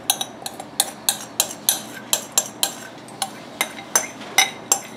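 Washed urad dal tipped from a glass bowl into a metal saucepan: a run of irregular sharp clinks and ticks, about three a second, as the grains and the bowl's rim knock on the pan.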